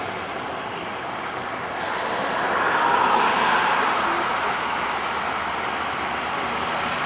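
Boeing 767 airliner's jet engines running as it rolls along the runway, a steady rushing noise that grows louder about two seconds in.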